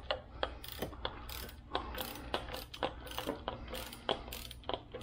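Ratchet wrench clicking in short, uneven runs as it is worked back and forth, loosening the pinch bolts of the upper fork clamps on a Suzuki DR650.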